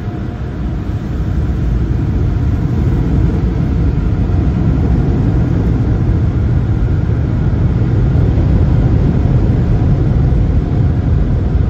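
Automatic car wash dryer blowers blasting air over the car, heard from inside the cabin as a loud, steady low rumble that builds over the first couple of seconds and then holds.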